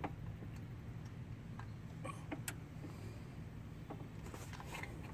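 A few faint, sharp metallic clicks as a headlight bulb's spring-wire retaining clip is pressed and worked by hand, over a steady low hum.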